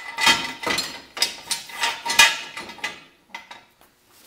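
Steel jack stand being raised and set in place by hand: a string of metallic clanks and ratchet clicks, about six in the first three seconds, the loudest a little after two seconds.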